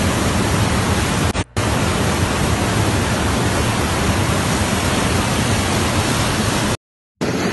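Brown floodwater rushing and churning in a torrent, a loud steady rushing noise. It breaks off for a moment about a second and a half in and again near the end.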